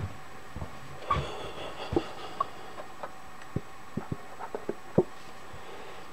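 Light clicks and small knocks from handling a squeeze bottle of cutting fluid at a stopped lathe while oiling a tap, about ten separate taps spread through, the sharpest near the end, with a soft rustle about a second in.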